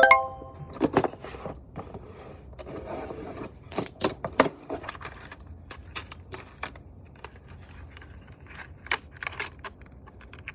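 A brief ringing clink at the start, then scattered clicks, taps and knocks of small objects being handled.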